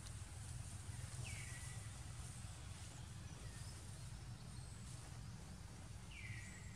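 Outdoor ambience: a steady low rumble and hiss. Over it, a short high whistled call that falls in pitch is heard twice, about a second in and near the end.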